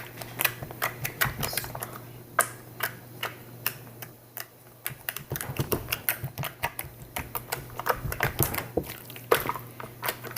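Hands squeezing and stretching homemade slime, making irregular clicking and popping sounds, several a second.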